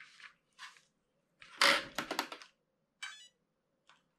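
Clicks and plastic clatter from a small RC car and its pistol-grip transmitter being handled and switched on, loudest about two seconds in, with a brief electronic chirp a little after three seconds.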